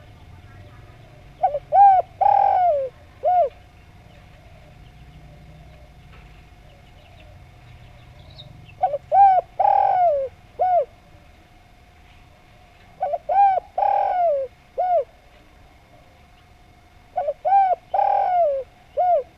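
Spotted dove (derkuku) cooing: four song phrases several seconds apart, each a short run of coos with a longer, falling coo in the middle.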